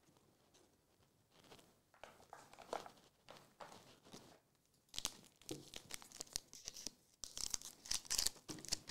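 A foil Magic: The Gathering collector booster pack being handled and torn open, the wrapper crinkling: soft rustling at first, then a run of sharp crackles from about halfway through, loudest near the end.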